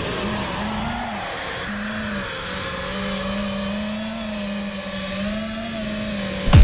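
Racing quadcopter's brushless motors and propellers whining steadily, the pitch wavering up and down with throttle as it flies. Loud music with a heavy beat cuts in right at the end.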